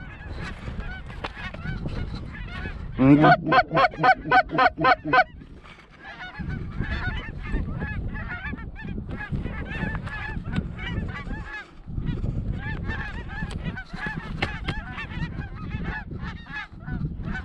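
A flock of lesser Canada geese calling, with many overlapping honks and cackles. About three seconds in comes a loud, close run of about nine quick honks.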